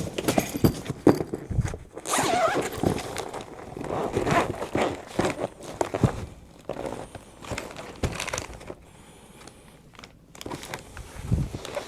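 Rummaging: irregular knocks and clatter with bursts of rustling as a bag is searched for power cords, dying down for a couple of seconds near the end before picking up again.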